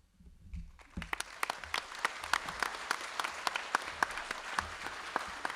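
Audience applauding, starting about a second in and continuing as many scattered hand claps.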